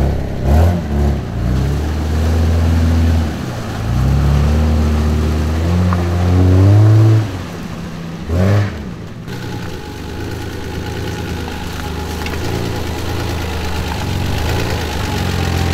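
Engine of a lifted GAZ Volga sedan on 39-inch mud tyres, driving off-road: revved in several pulls with the pitch climbing higher each time for about seven seconds, then dropping to a lower, steadier run.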